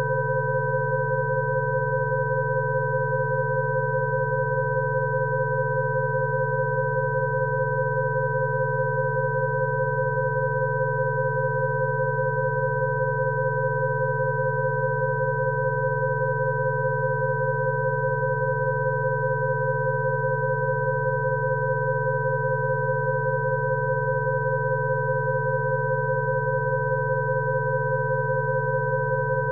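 Rife frequency tones: several steady electronic sine tones sounding together, one low and several higher, held unchanging throughout.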